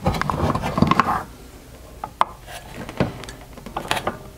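Rubber V-belt being worked by hand over the aluminium step pulleys of a bench drill press to change speed: about a second of rubbing and rattling, then a few sharp clicks of belt and metal.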